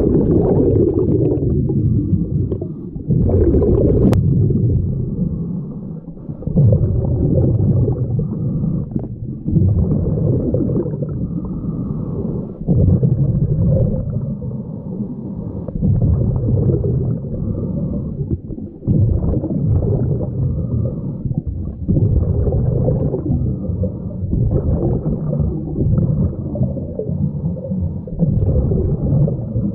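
Scuba diver's breathing underwater: exhaled air leaving the regulator as bubbling, gurgling surges about every three seconds, heard muffled under water.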